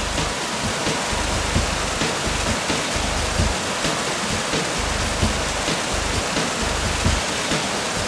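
Mountain waterfall: a steady loud rush of falling, splashing water, an even hiss with no pauses.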